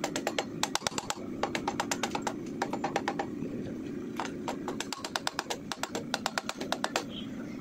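Soft-faced mallet tapping rapidly on the aluminium engine casing of a Yamaha WR155 engine to knock a part loose during teardown. The taps come in quick runs of several a second, with short pauses between them.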